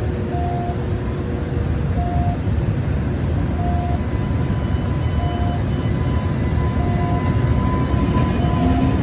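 JR Freight EH200 electric locomotive rolling slowly, a low rumble that grows louder as it nears, with a steady high whine joining about five seconds in. A short beep repeats about every one and a half seconds throughout.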